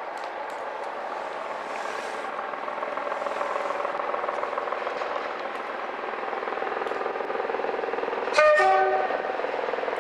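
Class 37 diesel locomotive approaching under power, its engine note growing steadily louder. About eight seconds in it sounds its two-tone horn briefly, a high note then a low note.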